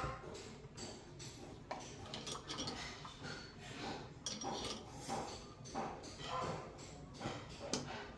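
Irregular small clinks and knocks of metal and plastic parts and hand tools being handled while a shower valve cartridge and its trim are put back together.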